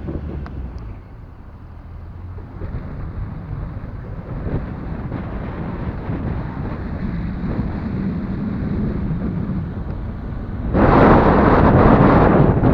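Car driving along a rough farm track: a steady low rumble of tyres and engine. Near the end a much louder rushing noise cuts in suddenly, like wind buffeting the microphone.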